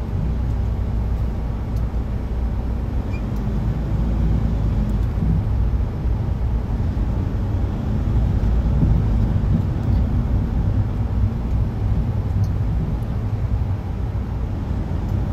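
Steady low rumble inside a coach bus cabin from the bus's running engine.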